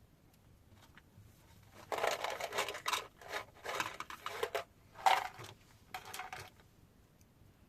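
Rustling, scratchy handling noises in several short bursts over about four and a half seconds, in a small room.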